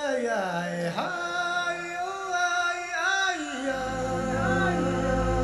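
Background music: sustained, gliding vocal or synth tones, joined by a steady low bass layer about four seconds in.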